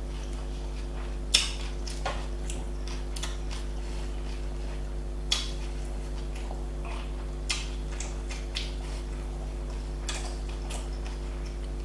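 Close-up eating sounds: irregular sharp mouth clicks and smacks while chewing a doner kebab, a dozen or so over the stretch, over a steady low electrical hum.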